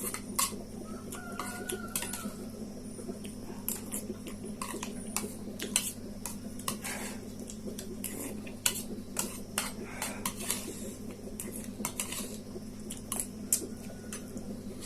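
Fork or utensil clicking and scraping against a bowl of noodles as they are eaten, in scattered irregular clicks over a steady low hum.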